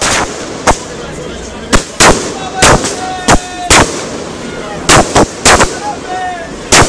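Fireworks going off: a quick, irregular series of about a dozen sharp bangs, some in close pairs.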